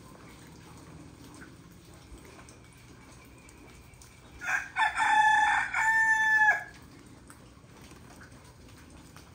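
A rooster crowing once, a cock-a-doodle-doo of about two seconds starting midway through, in three joined notes with the last one falling at the end.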